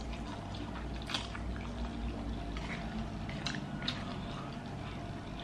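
Wet chewing and mouth sounds of a person eating, with a few short, sharper smacks scattered through.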